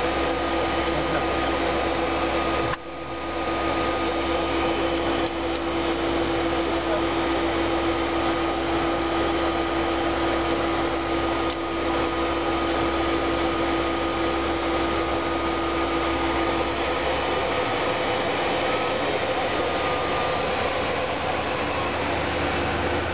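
Steady cockpit noise of a Learjet 60 in descent: the rush of airflow and the hum of its twin Pratt & Whitney PW305A turbofans, with a steady whine over it. The level dips briefly about three seconds in.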